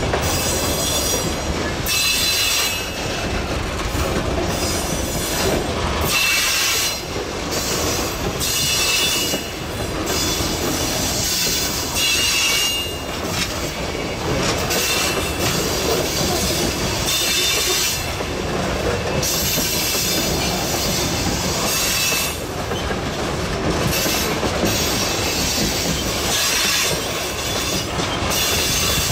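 Freight wagons (grain hoppers and open-top gondolas) rolling past: a steady rumble of steel wheels on rail with irregular clanks and clatter, and a short high-pitched wheel squeal that comes and goes several times.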